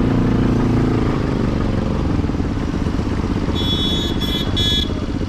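Motorcycle engine running while riding through traffic, its pitch falling a little over the first two seconds as the bike slows. Near the end, three short high-pitched beeps sound in quick succession.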